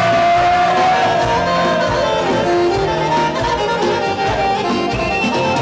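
Loud live folk music: an accordion-led instrumental passage with no singing.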